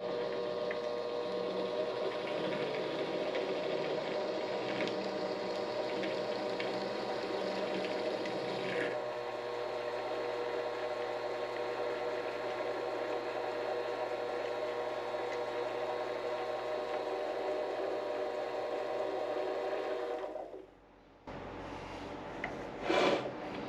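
Vevor 7x12 mini-lathe running steadily with a whine of several even tones while a center drill works into the spinning part. The motor winds down and stops about twenty seconds in, leaving a low hum.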